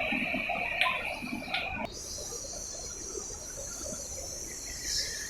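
Insects droning steadily in a high, even band. About two seconds in, the sound cuts off abruptly and is replaced by a higher-pitched insect drone.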